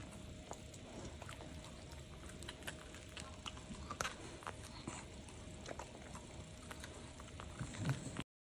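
A Shiba Inu gnawing and licking a corn cob: faint, irregular small crunches and clicks over a low steady hum, cutting off just before the end.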